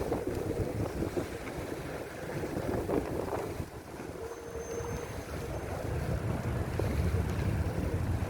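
Wind buffeting the microphone of a bicycle-mounted camera riding through a snowstorm, with a constant low rumble that grows louder in the last couple of seconds.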